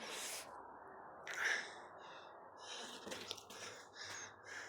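Footsteps scuffing on the floor of a sandstone tunnel, a soft hissy step about every half second, one louder about a second and a half in.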